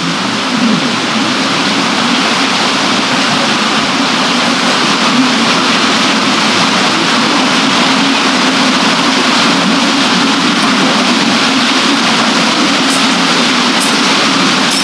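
Water rushing steadily at a water wheel and the Regnitz river, a constant hiss with a deeper rumble beneath it. A few faint ticks come near the end.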